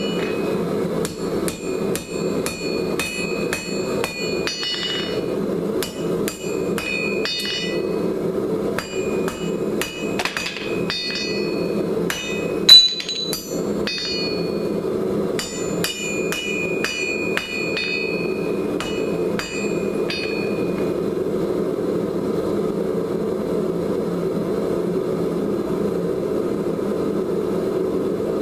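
Hand hammer striking red-hot coil-spring steel on an anvil to straighten it: runs of quick ringing blows with short pauses, one especially hard blow about halfway through, and the hammering stopping about three quarters of the way in. A steady rush from the lit forge runs underneath.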